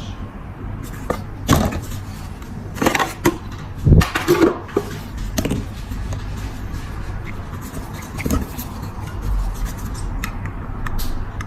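Scattered clicks, taps and scrapes of hand tools working on a metal lighter's bent hinge, with a cluster of sharper knocks about three to four and a half seconds in, over a low steady hum.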